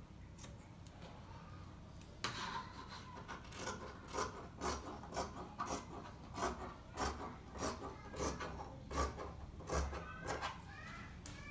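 Scissors snipping through dress fabric, a steady run of short cuts at about two a second, starting about two seconds in.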